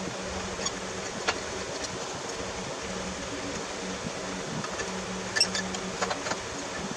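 Steady hum of a shop fan, with a few light metal clicks and taps as exhaust pipe pieces are handled, about a second in and again around five to six seconds.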